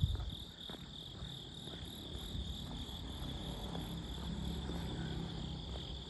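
Crickets trilling steadily, one continuous high chirring, over a low rumble, with a short bump at the very start.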